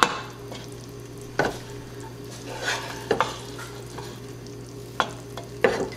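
Wooden spoon stirring and fluffing cooked white rice in a nonstick pot, with several short knocks and scrapes of the spoon against the pot.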